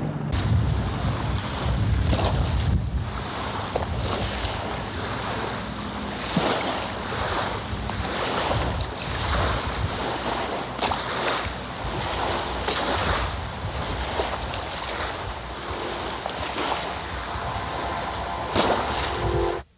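Wind buffeting the microphone in uneven gusts over the wash of open water.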